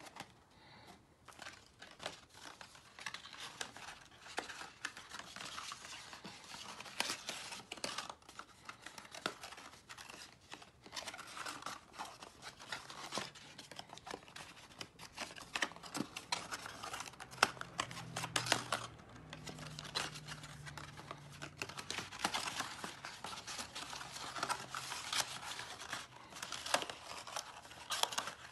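Stiff black cardstock being folded, creased and pressed flat by hand: continuous paper rustling and crinkling with many short sharp clicks of the card.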